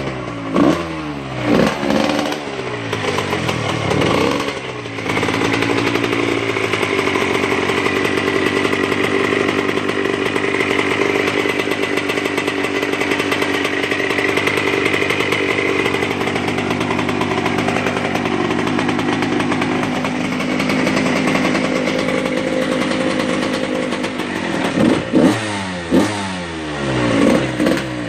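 2002 Honda CR125's freshly rebuilt single-cylinder two-stroke engine running on its first start after the rebuild. It is revved up and down in quick blips, held at a steady fast idle for about twenty seconds, then blipped again near the end.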